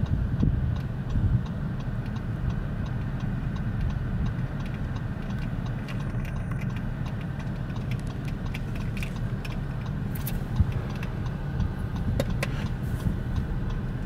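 Steady low rumble of a stopped car's engine idling, with scattered faint clicks.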